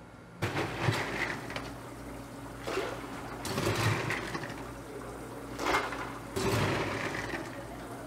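Water splashing into a glass beverage dispenser filled with ice, starting about half a second in and coming in several louder splashing surges.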